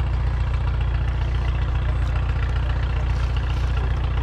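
An engine idling steadily: a low, even drone with a fast regular pulse that does not change.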